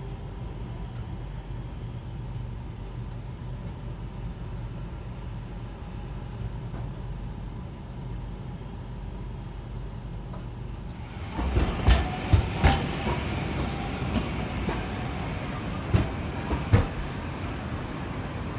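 Steady low rumble from inside a car waiting while streetcars cross the junction ahead. About 11 seconds in, louder street noise takes over, with a handful of sharp clacks and knocks from traffic on the tram tracks.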